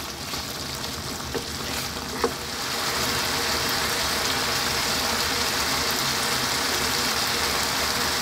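Pork adobo in coconut milk sizzling and bubbling hard in a pan, with a couple of knocks of a wooden spatula against the pan in the first two seconds. The sizzle gets louder and steadier after about two and a half seconds.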